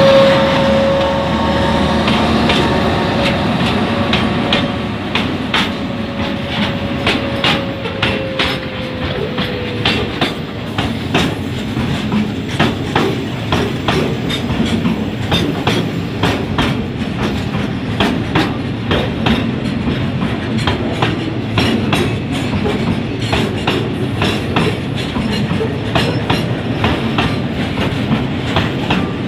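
A freight train of cement tank wagons rolling past close by, its steel wheels clacking over the rail joints in a fast, steady rhythm. At first a thin whine is heard; it sinks slightly in pitch and fades out within about ten seconds.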